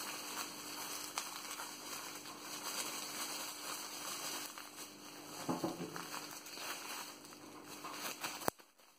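Bubble wrap and crumpled paper packing rustling and crackling as wrapped packages are handled and lifted out of a cardboard box, with a sharp click near the end.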